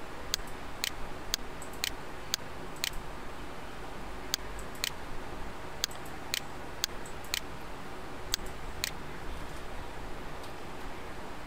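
Computer mouse button clicks: about a dozen sharp single clicks, mostly in pairs about half a second apart, over a faint steady hiss. The clicks stop shortly before the end.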